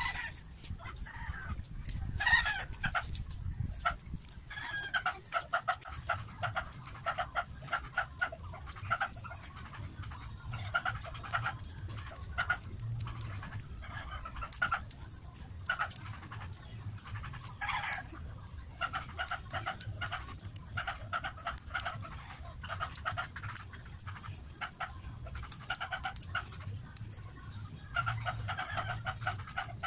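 A dog panting in a steady rhythm, over small clicks and scrapes of pliers pulling burnt copper winding out of a planer armature. A chicken calls near the start.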